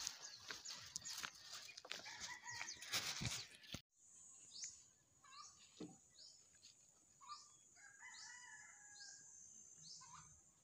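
Rustling and knocking from a hand-held phone while walking, then, after a cut, faint birds calling in a repeated run of short falling notes over a steady high insect drone.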